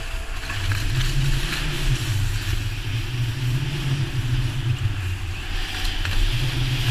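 Skis sliding and hissing through snow on a steep descent, with wind rumbling on the GoPro's microphone; the rumble swells about a second in and again near the end.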